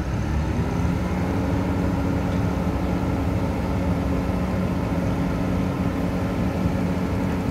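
Asphalt paver's diesel engine running, its pitch rising during the first second as the engine speeds up, then holding steady.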